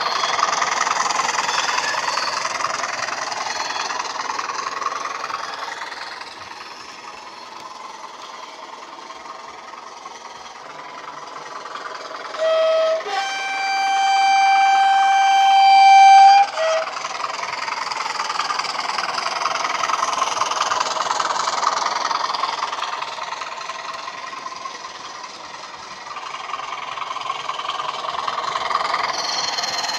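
Bachmann Class 20 model locomotive's SWD sound decoder playing a Class 20 diesel engine sound through a speaker in the fuel tanks, swelling and fading as the model laps the layout. About 13 s in, the two-tone horn sounds: a short low note, a long higher note held about three seconds and growing louder, then another short low note.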